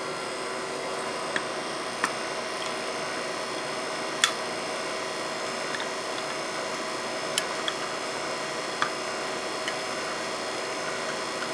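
Handheld manual can opener worked around a small tin can of tomato paste: a handful of faint, sharp metallic clicks at irregular intervals over a steady room hum.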